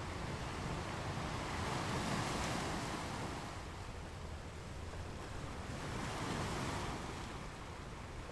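Steady hiss of background noise that swells twice into a soft rush, about two seconds in and again about six seconds in.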